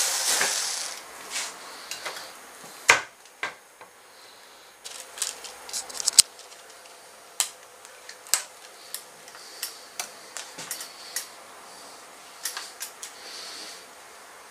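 A flexible-shaft rotary tool running down in the first second, then scattered clicks and knocks from handling a roller speargun, the sharpest about three and six seconds in.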